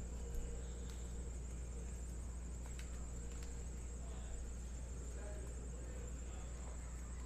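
Steady low hum with a constant thin high-pitched whine, and a few faint clicks of trading cards being handled.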